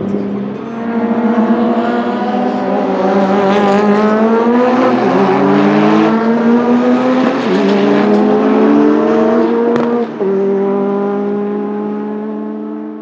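Porsche 935 K3's turbocharged flat-six engine accelerating hard through the gears. Its pitch climbs, then drops sharply on upshifts about five, seven and a half and ten seconds in, and after a brief dip in loudness at the last shift it runs on at a steadier, slowly falling pitch.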